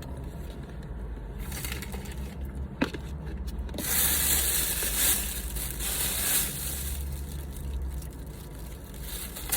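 Crinkling and rustling of handled packaging, loudest for a few seconds in the middle, with a few small clicks, over a steady low hum.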